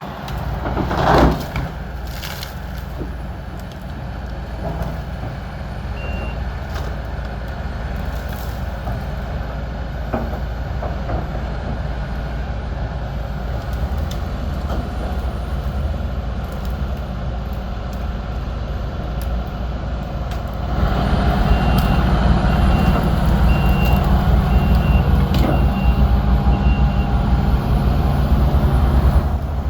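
Heavy vehicle's engine running steadily, with a loud sharp crack about a second in. About two-thirds of the way through the engine gets louder and a reversing alarm beeps repeatedly for several seconds.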